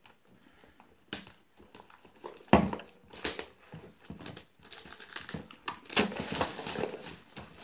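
Plastic shrink-wrap being cut and then peeled and crinkled off a cardboard box by hand, with a few light clicks and a sharp knock about two and a half seconds in. The crinkling becomes dense and continuous from a little past halfway.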